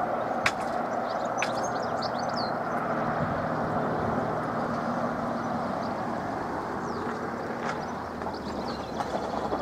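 Steady outdoor rushing noise with birds chirping now and then, and a few sharp clicks.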